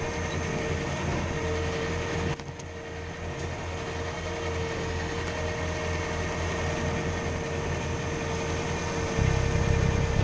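Bobcat T595 tracked skid steer's diesel engine running steadily, with a high whine held over it, as it works a low-flow brush cutter. The engine sound dips briefly about two seconds in and grows louder and deeper near the end.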